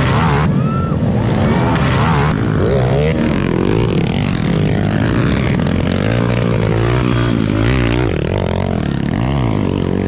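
Several motocross dirt bike engines racing past one after another, revving up and down in pitch as the riders ride the dirt track.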